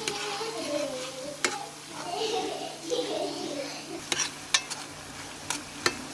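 Chopped garlic and green onion frying in oil in a pan, with a steady sizzle. A utensil stirs them and knocks sharply against the pan about five times.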